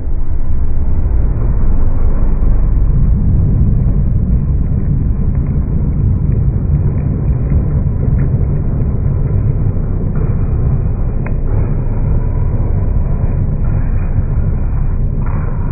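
Exhaust of a 2003 Mazda MX-5 with its catalytic converter removed from the mid pipe, giving a steady deep rumble that eases off slightly toward the end.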